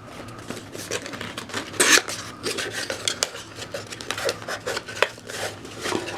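Packaging being handled and a hard plastic tool battery pack clicking and knocking, as the pack is unboxed. A louder rustle comes about two seconds in, with sharp clicks throughout.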